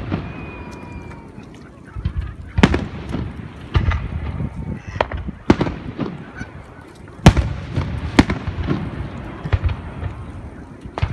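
Aerial fireworks shells bursting in a display: a series of about seven sharp booms, each followed by a rumbling echo, the loudest about seven seconds in.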